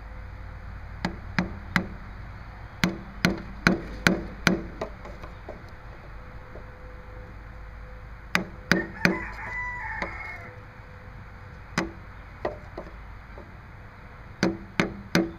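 Hammer tapping the end of a PVC pipe to drive a new crankshaft oil seal into a Briggs & Stratton Quantum lawn mower engine. The taps are light, coming in short runs of three to six about half a second apart, with pauses between the runs: the seal is being seated a bit at a time.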